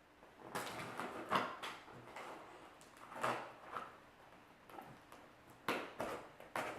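A cardboard shipping box being opened and its packing handled: irregular scraping, rustling and sharp knocks, loudest about a second and a half in and again near the end.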